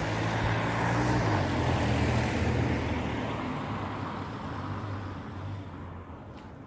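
A car driving over the level crossing and past, engine and tyre noise growing to its loudest about two seconds in, then fading away.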